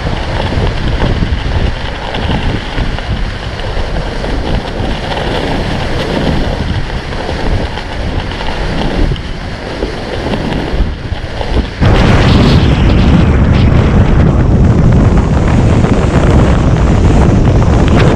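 Storm-force wind gusts rushing and buffeting the microphone with a deep rumble. About two-thirds of the way through it abruptly becomes much louder, with heavy low buffeting.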